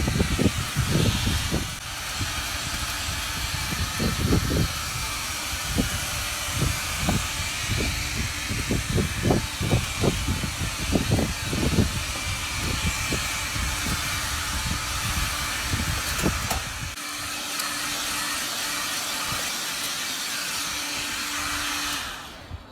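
Gas stove burner flame burning at full: a steady hiss with irregular low rumbling, which smooths out to a plain hiss with a faint hum about 17 seconds in and stops suddenly near the end.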